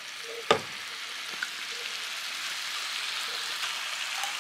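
Beef and spices sizzling in a frying pan for rendang, a steady hiss that grows slightly louder as thick coconut cream is spooned in. There is one sharp knock about half a second in.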